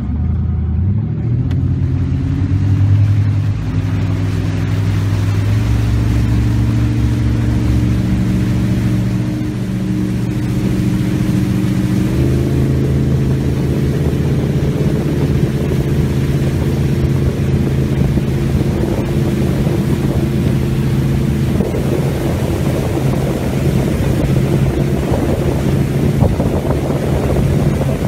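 Regal 2500 boat's engine running under way, its pitch climbing as it speeds up at the start and stepping up again about 12 seconds in. Rush of wind and water grows louder near the end.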